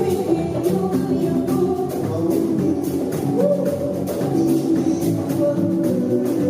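Music: a song with singing over guitar and percussion, keeping a steady beat.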